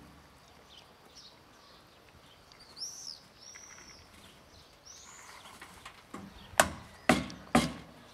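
A few short, high, arched bird chirps, then three footsteps on gritty pavement about half a second apart near the end; the steps are the loudest sounds.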